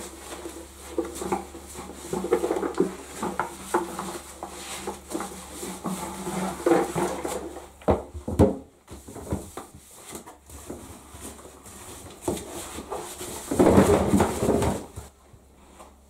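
Rubber-gloved hands rubbing a sponge over the wet plastic body of a Numatic Henry vacuum cleaner, with many small knocks as the plastic shell is handled. A few sharp knocks come about eight seconds in, and the loudest clatter comes near the end as the hollow plastic body is turned over and set down in the bath.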